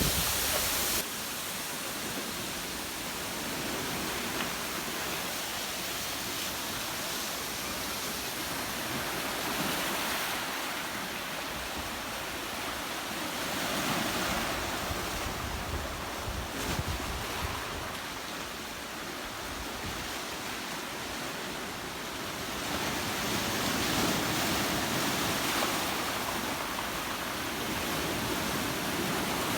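Jeongbang Falls pouring down near the sea: a steady rush of falling water mixed with surf, swelling and easing slowly over several seconds.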